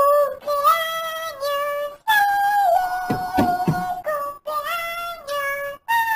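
High-pitched, pitch-shifted voice of a cartoon cat character singing a melody in held notes, in short phrases with brief breaks between them.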